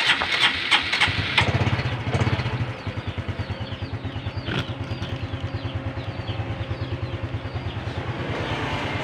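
Honda Supra X 125 FI's single-cylinder four-stroke engine being started: a few irregular knocks, then it catches about a second and a half in and settles into a steady fast idle.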